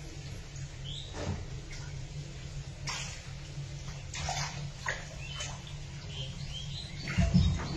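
Small, sharp water splashes, several in a few seconds, in shallow water crowded with snakehead fry, over a low steady rumble. A heavier dull thump comes near the end.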